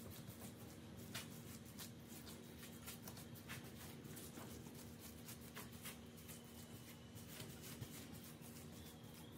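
Faint crinkling of a plastic sheet and soft pats as fingers press and spread a soft zucchini dough, several small crackles a second. A faint steady hum runs underneath.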